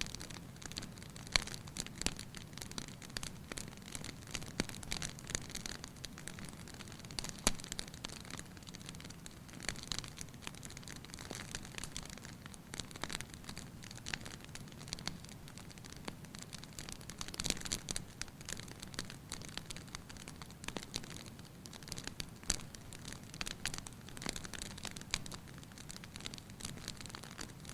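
Wood fire in a fireplace crackling steadily, with frequent irregular sharp pops and snaps over a soft low rumble.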